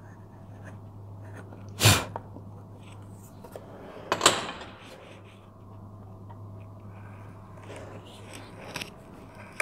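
Knocks and clatter of wood-carving tools being handled on a workbench: a sharp knock about two seconds in, then a louder clatter with a short rustle about four seconds in, and a few light ticks near the end.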